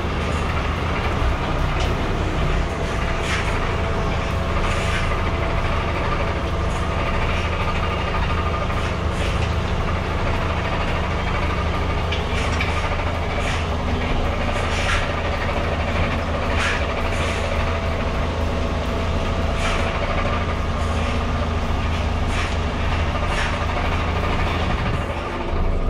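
DAF truck's diesel engine running steadily: a low rumble with a faint steady whine over it. Brief sharp sounds come every second or two.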